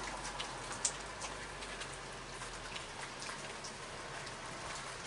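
Steady rain hiss, with scattered drops ticking on a wet wooden deck.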